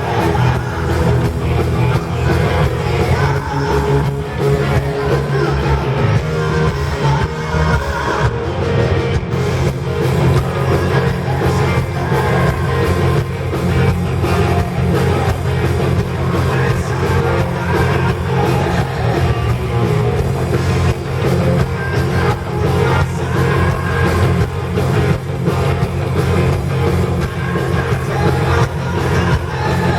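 Rock band playing live at full volume, with singing: electric guitars, bass and drums going steadily without a break.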